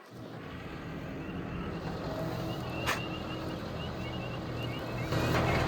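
Engine running steadily, building up in the first couple of seconds, with a sharp click near the middle. About five seconds in it turns louder and rougher.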